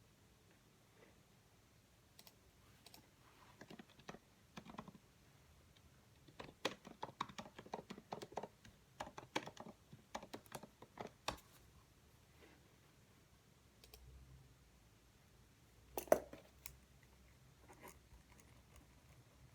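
Faint clicks and taps at a desk in irregular bursts, with a single louder knock near the end.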